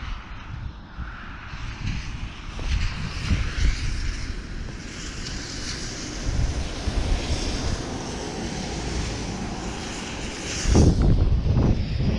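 Wind buffeting a body-worn camera's microphone, a steady rush with low rumbling gusts, mixed with clothing rustle and handling noise as the wearer moves. The rumble grows louder for about a second near the end as his arms and jacket move close to the camera.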